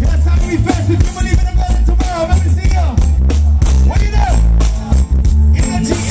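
Live reggae band playing loud through a festival PA: heavy bass, drums, electric guitar and keyboards, with a voice singing over the top.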